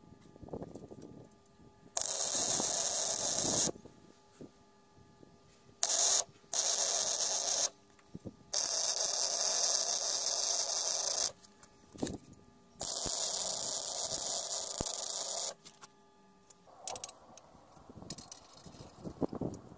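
Electric arc welding on the steel arm of a floor crane: five bursts of steady hiss, each up to about three seconds long, with short pauses between. Near the end, light metallic clicks of a wrench on a hydraulic hose fitting.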